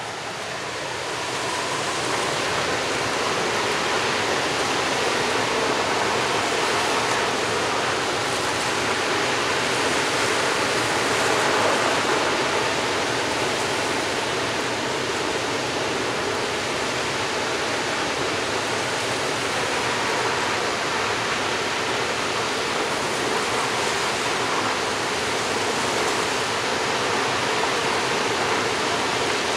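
Dam outlet discharge on the Boise River at about 8,500 cfs: a steady rush of water blasting from the outlet pipe as a rooster-tail spray and crashing into the churning river. The sound swells in over the first couple of seconds and then holds level.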